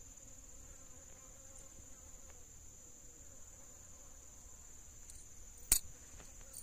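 Insects trilling steadily at a high pitch, with a single sharp click a little before the end.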